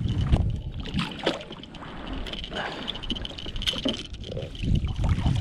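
Irregular splashing and knocks on and around a kayak as a hooked fish is brought alongside and handled.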